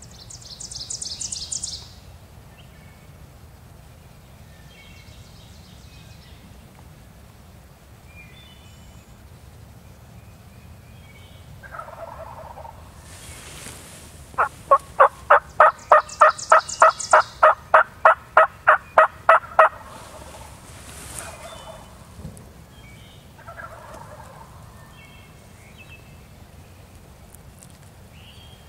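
Wild turkeys calling: a few short gobbles, and a loud run of about twenty evenly spaced yelps, some four a second, lasting about five seconds midway. A small bird trills briefly at the start.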